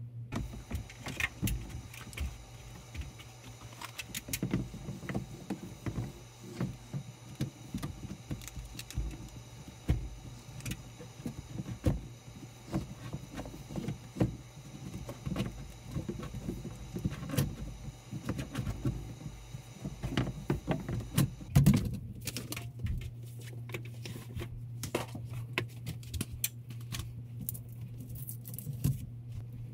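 Hand work inside a metal breaker panel: scattered clicks, taps and small rattles of tools and wiring being handled, over a steady low hum. The loudest knock comes about two-thirds of the way through, and after it the clicks grow sparser.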